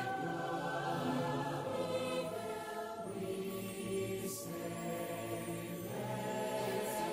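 A choir singing long held chords that change every second or two.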